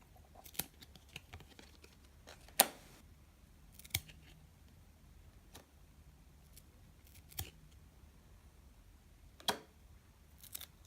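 Chromium trading cards being handled and peeled apart where they are stuck together: about six sharp clicks and snaps spread out, the loudest about two and a half seconds in.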